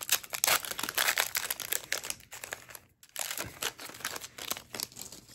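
Plastic booster pack wrapper crinkling as it is torn open and handled, a dense run of crackles with a brief pause about three seconds in.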